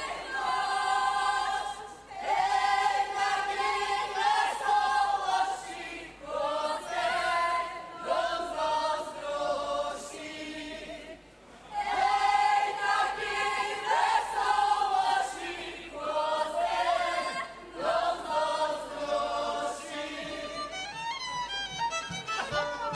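A group of Górale (Polish highlander) men and women singing a Podhale folk song unaccompanied, in short held phrases with brief breaks between them. Near the end the band's fiddles come in.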